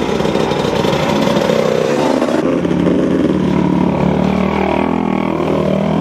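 Off-road 4x4 vehicle's engine running with a loud rush of noise, the upper hiss dropping away about two seconds in, then the engine note rising and falling.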